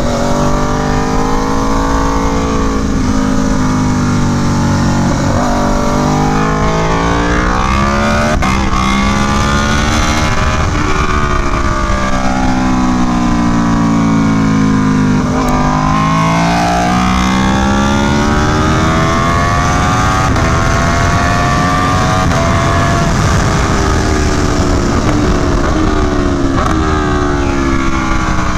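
Aprilia Tuono V4 1100 Factory's V4 engine through an SC Project CR-T exhaust, ridden hard on track. The revs climb and fall repeatedly, with sudden short drops at gear changes, over a steady rush of wind noise.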